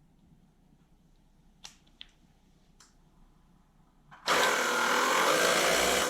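A Greenworks 2300 psi electric pressure washer's motor starting suddenly and running steadily for about two seconds before cutting off, after a few light clicks. It runs now that a loose wire connector at the on/off switch has been crimped tight.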